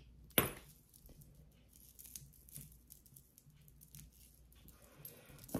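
Small pendants and chains being handled: faint rustling and light ticks of metal jewelry, with a sharp click about half a second in and another near the end.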